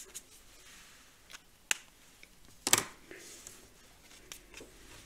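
A handful of short sharp clicks and taps from marker pens being handled on a craft table, the loudest a little past halfway.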